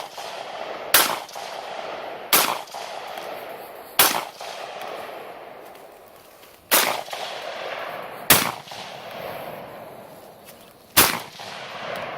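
IWI X95 Tavor 5.56 rifle fired in single semi-automatic shots, six of them at uneven intervals of roughly one to three seconds. Each crack trails off in a long echo.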